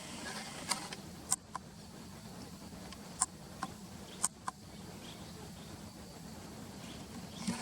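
Barn swallows giving a handful of short, sharp calls, about seven in the first five seconds, over a steady low rumble like distant traffic.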